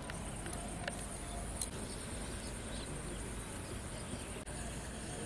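Outdoor ambience: a steady high insect hum over a low noise floor, with a few faint clicks.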